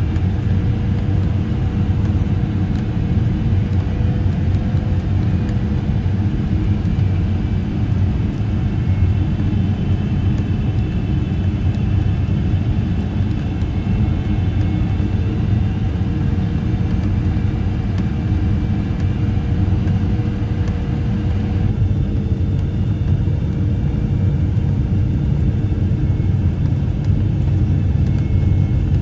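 Steady low rumble of Boeing 777-300ER cabin noise from the GE90 engines during the approach and descent, with a faint engine tone wavering slightly in pitch. The higher hiss eases a little about two-thirds of the way through.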